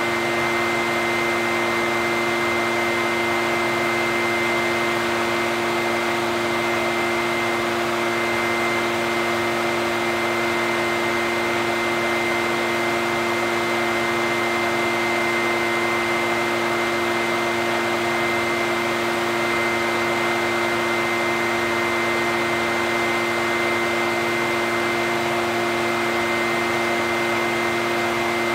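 Echo backpack leaf blower's two-stroke engine running at a steady speed, with a constant whine over the rush of air from the fan.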